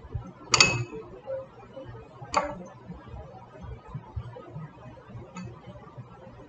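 Two sharp clinks of glass, about two seconds apart, the first ringing briefly, then a faint tick a few seconds later: a small object knocking against a glass bowl.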